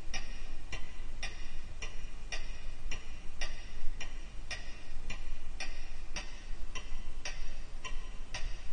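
Mechanical clock ticking steadily, a sharp, even tick about twice a second.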